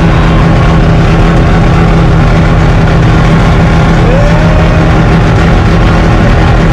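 Four-rotor Mazda 26B rotary engine in a Holden FJ, heard loud from inside the cabin while running hard and steady at a fairly constant speed along a straight.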